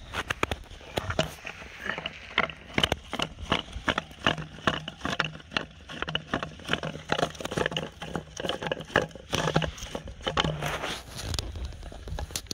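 Close handling noise: rapid, irregular crackles and scrapes of a plastic bottle and its twine line being handled, over a faint steady low hum.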